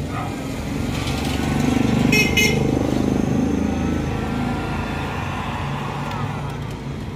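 Electric heat gun running, its fan blowing steadily as it softens a vinyl decal. A motor vehicle engine swells and fades behind it, loudest about two to three seconds in.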